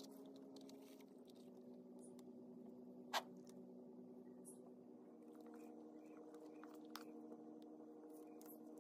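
A fork working through a soft, syrupy cinnamon roll on a ceramic plate, with one sharp clink of the fork on the plate about three seconds in and a lighter one near seven seconds. Faint held tones run underneath and change pitch about halfway through.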